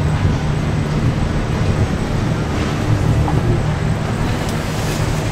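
Motor yacht's engines idling, a steady low drone.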